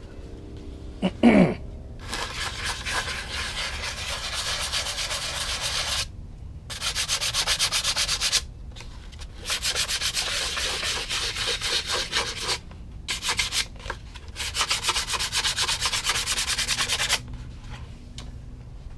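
Sandpaper rubbed back and forth by hand over filler at the joint between a plastic cowling and a balsa fuselage on a model airplane. It comes in several runs of strokes with short pauses between them. A short squeak falling in pitch comes just before the sanding starts.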